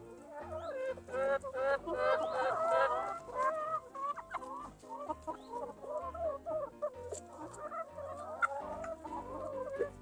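A flock of backyard chickens clucking excitedly as they scramble over food, with many short overlapping calls, busiest about two to three seconds in.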